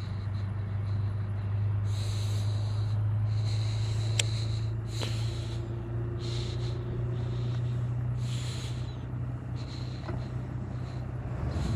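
Bow-mounted electric trolling motor humming steadily as the boat creeps along. Short hissing puffs come every second or so, and there are two sharp clicks around the middle.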